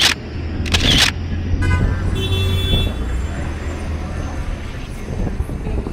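Street traffic with a steady low rumble; a vehicle horn sounds briefly about two seconds in, after two sharp clicks in the first second.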